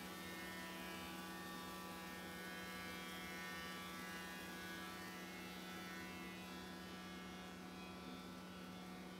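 Thicknesser planer running with a steady motor buzz while a wooden plank is fed through and planed, the cutter block adding a broad rushing noise.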